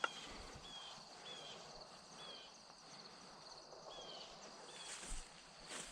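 Quiet open-air ambience with a short, high, slightly falling chirp repeating about once or twice a second. A sharp click comes right at the start and another brief one near the end.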